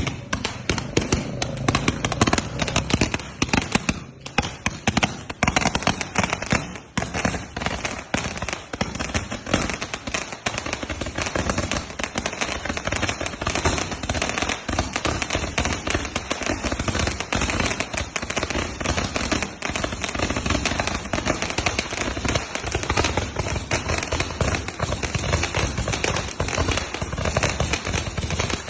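A 'shotgun' firecracker going off: a dense, rapid string of sharp bangs and crackles, thinning briefly twice in the first seven seconds and then continuing without a break.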